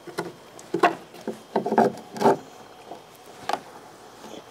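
Wooden lumber being handled, with several short knocks and some rubbing scattered through the first few seconds.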